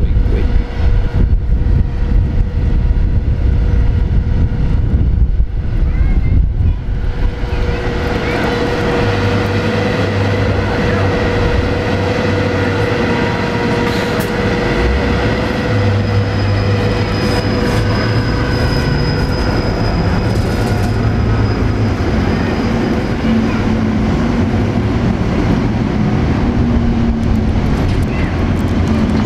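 Standing trolleybus with its electrical equipment giving a steady whine over a low hum, above the rumble of street traffic. The whine sets in a few seconds in and holds steady.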